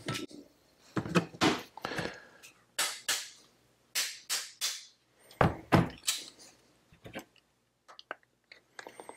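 Irregular knocks and clatters of a metal carburetor body and hand tools being picked up, set down and handled on a workbench, a dozen or so short separate hits.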